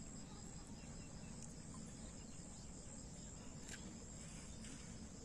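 Insects chirring steadily in a high, even drone over faint low outdoor background noise, with a single small click partway through.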